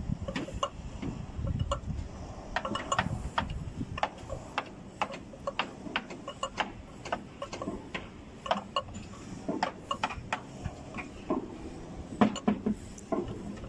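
Irregular sharp metal clicks, several a second, from a wrench working the bolts on a tower crane's hoist gearbox.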